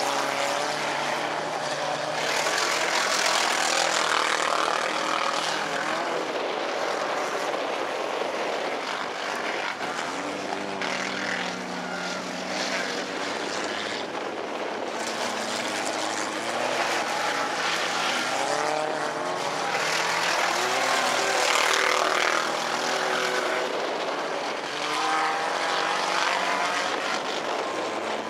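Four-cylinder bomber-class stock cars racing on a dirt track: several engines revving at once, their pitch rising and falling as the cars accelerate, lift and pass, the overall noise swelling and fading.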